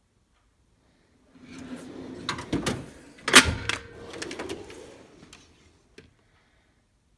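Metal tool chest drawer sliding on its runners with loose sockets rattling inside, closed with a sharp metal clunk about three and a half seconds in, followed by a single click a few seconds later.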